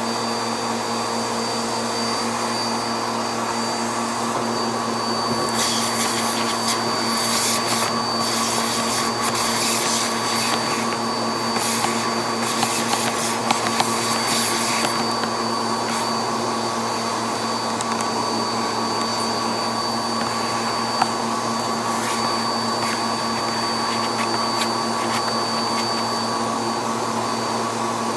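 Vacuum cleaner running steadily with a constant hum and high whine, its hose and crevice tool sucking out a dust canister. From about six to fifteen seconds in, debris crackles and rattles up through the nozzle.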